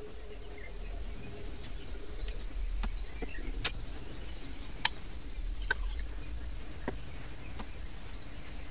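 Liquid poured into a glass beaker on a stirrer plate, with a few sharp glass clinks about halfway through over a low steady hum.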